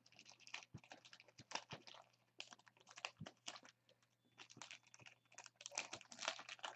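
Faint, irregular clicking of typing on a computer keyboard, growing busier near the end.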